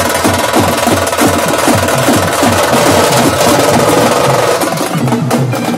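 A group of hand-held drums with green heads beaten with sticks in a fast, loud, driving rhythm of rapid strokes.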